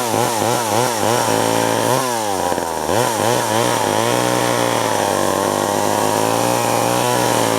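Vintage Homelite two-stroke chainsaw running at high speed, its engine pitch rising and falling quickly several times in the first seconds, dipping and climbing again, then holding steady.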